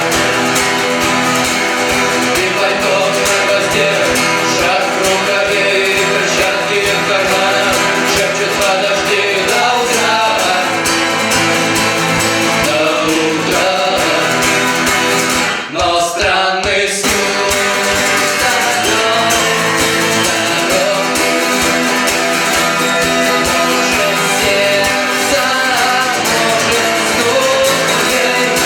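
A band playing a song live, with guitar and singing. The music breaks off for about a second a little past the middle, then carries on.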